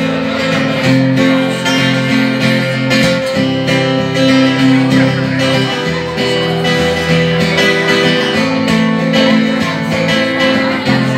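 Acoustic guitar played live, steady chords in an instrumental introduction with no singing yet.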